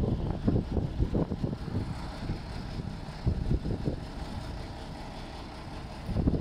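Engine of a truck-mounted crane running steadily, with uneven low rumbling surges over it.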